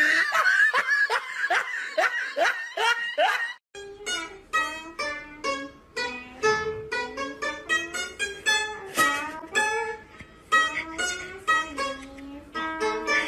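Pipa (Chinese lute) played as a run of separate plucked notes, starting about four seconds in. Before that comes a string of short, repeated high cries.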